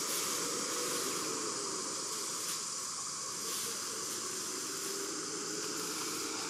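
Steady, high-pitched insect drone, like cicadas or crickets, with a faint wavering hum underneath.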